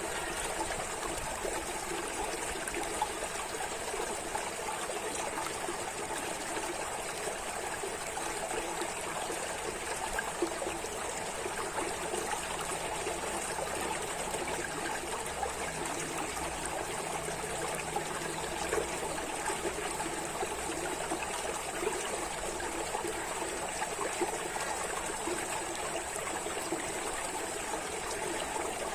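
Running water trickling steadily, a continuous even flow with no pauses or splashes.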